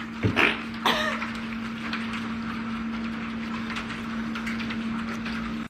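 Heavy rain falling steadily, with a constant low hum underneath that holds one pitch throughout. A couple of brief voice sounds come in the first second.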